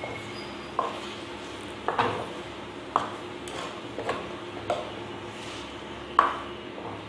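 A spoon stirring bitter gourd and chopped tomato in an earthenware clay pot, knocking and scraping against the pot about once a second, the loudest clink about six seconds in.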